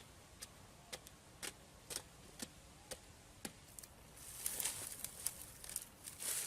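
Light, sharp knocks about twice a second, evenly paced, typical of tapping or chopping with a hand tool. About four seconds in they give way to a rougher scraping, rustling noise with scattered knocks.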